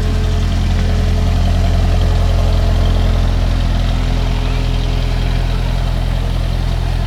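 A train's engine idling, a steady low drone.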